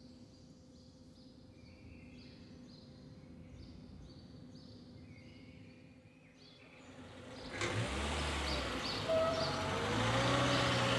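Faint, evenly repeating high notes, then about two-thirds of the way through street ambience comes in suddenly: traffic rumble with a car going by, and birds chirping.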